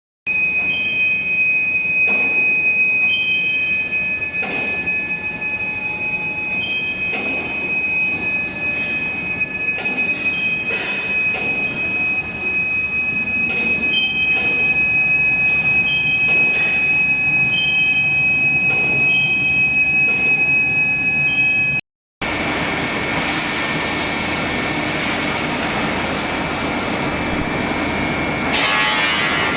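Steel-bar induction hardening and tempering line running: a steady high-pitched whine from the induction heater, with repeated short higher tones and scattered knocks. After a cut about two-thirds through, the sound turns to a louder hiss under several steady tones, with a brief surge of hiss near the end.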